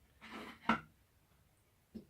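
Small handling noises at a workbench: a brief soft scrape, then one sharp click about three-quarters of a second in.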